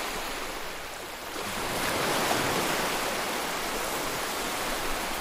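Ocean surf washing onto a sandy beach: a steady rush of breaking waves that swells about a second and a half in, then holds.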